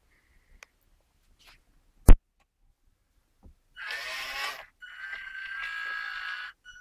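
A sharp click about two seconds in, then the RC Unimog model's small electric tipping motor whining with a steady high tone as it lowers the tipper bed, in two runs with a brief pause between.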